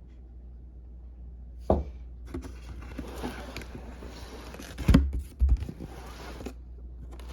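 Handling noises: a sharp knock, then scraping and rustling with two louder knocks, over a low steady hum.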